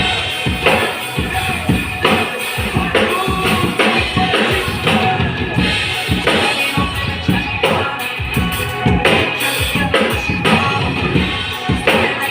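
Drum kit played live, with driving bass-drum and snare hits and cymbals, over a backing track of recorded music.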